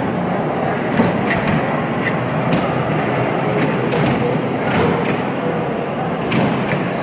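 Small kiddie train ride running on its circular track, a steady rumble with a few light clicks.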